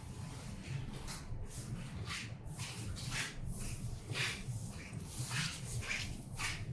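Soft, irregular rustling and light handling noises from hands working small plastic ink dampers and tubing, over a low steady hum.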